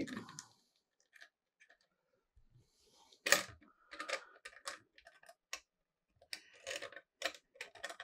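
Light, scattered clicks and taps of a computer motherboard being handled and turned around on a desk mat, with a run of small knocks in the middle and again near the end.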